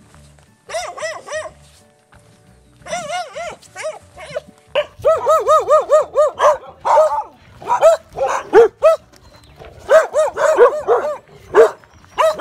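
Several street dogs barking: a few short groups of barks at first, then rapid, overlapping barking from about five seconds in.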